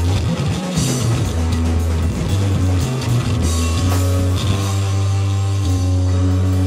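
Live rock band playing: a heavy, held bass note under guitar and a drum kit, with cymbal crashes a few times.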